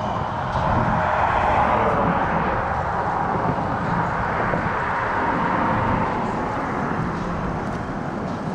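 A vehicle driving past, its tyre and engine noise swelling about a second in and fading toward the end.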